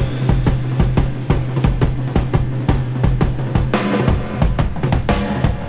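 Background music with a steady drum-kit beat over a held bass note.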